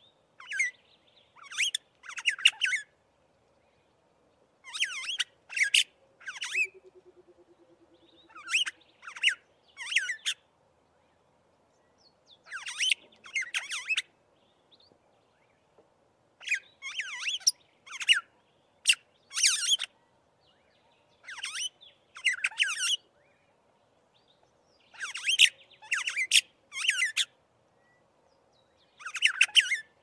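Starling of the genus Aplonis calling: short, sharp, high-pitched notes given in quick bursts of two to five, with pauses of a second or two between bursts.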